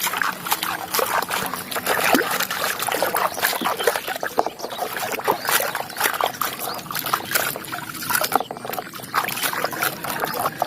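Water trickling and splashing as a muddy toy is washed, with many small clicks and knocks from handling and scrubbing it.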